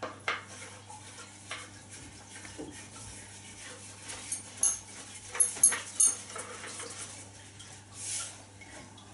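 Handling noise from an ice chisel's wooden handle and threaded couplings: scattered light clicks and knocks, with a quick run of sharp, slightly ringing clinks about halfway through and a soft rub near the end.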